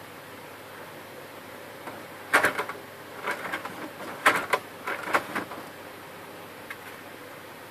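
Sharp plastic clicks and rattles in several short clusters, from about two seconds in to about five and a half, as a finger presses and turns the white hub at the centre of a drive gear on the side plate of an HP LaserJet 1300 printer.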